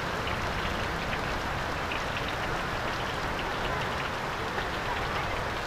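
Heavy rain falling steadily on a paved road: a dense, even hiss dotted with the fine ticks of individual drops.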